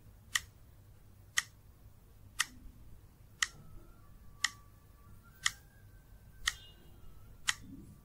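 Clock-style countdown timer ticking, one sharp tick a second, eight ticks in all, marking the time given to solve a quiz question.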